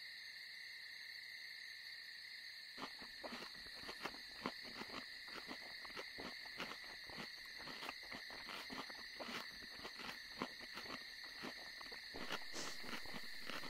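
Night-time insect chorus, a steady high cricket trill. About three seconds in it is joined by an irregular run of short, crisp clicks, several a second: a caterpillar munching a leaf.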